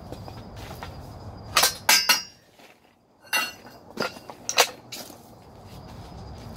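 Metal tools and engine parts clinking and clanking against each other, about six sharp knocks in two quick clusters, during work on an engine hung from a hoist.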